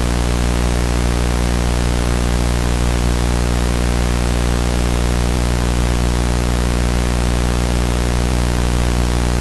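Loud, unchanging static hiss over a steady low buzzing hum with many overtones, the sound of a broadcast signal taken over by noise.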